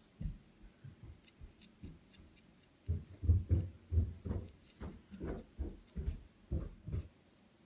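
A knife scraping the seeds out of a halved rose hip: faint light ticks at first, then from about three seconds in a run of irregular dull thumps, two or three a second, as the knife and hand work against the wooden table.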